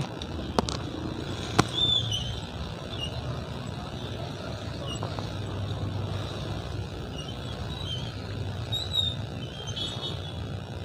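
Steady low rumble of jammed city traffic, cars and motorbikes running at a crawl. Two sharp clicks come in the first two seconds, with scattered faint high squeaks through it.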